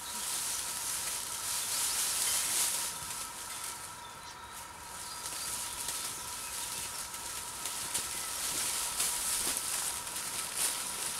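Outdoor background hiss that swells and fades, with a faint steady tone underneath and a few faint clicks near the end.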